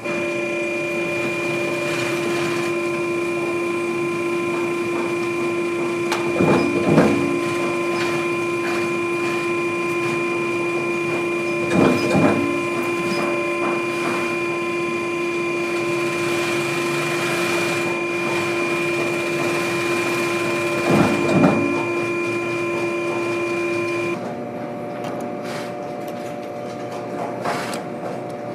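An electric leather-working machine runs with a steady hum, broken by three brief knocks. Near the end the sound cuts to a post-bed sewing machine running quieter, with light clicks as it stitches leather.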